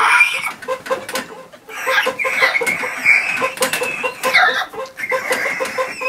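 A young man's fast, clucking cackle, a hen-like laugh pulsing about four times a second, with brief breaks about two seconds in and again near five seconds.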